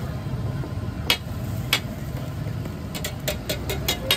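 Metal spatula clacking against a flat griddle: two single strikes, then a quick run of about seven taps near the end, over a steady low rumble.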